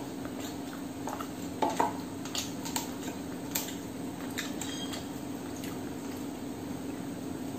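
Hand mixing and picking up food on a steel plate, with scattered clicks and taps of fingers against the metal, the loudest a pair about two seconds in. A steady low hum runs underneath.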